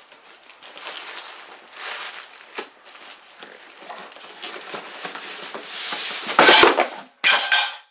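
Plastic wrapping and hard foam packing crinkling and rubbing as a boxed scroll saw is handled, with two louder bursts of crinkling near the end.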